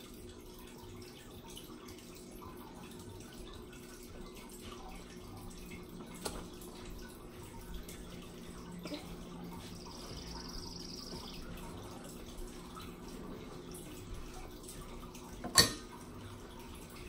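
Quiet room with a steady low hum, a few faint small clicks, and one sharp knock near the end.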